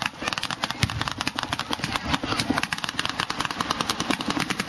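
Rapid, sustained gunfire from a mock ground attack, many sharp cracks a second, over a low engine rumble.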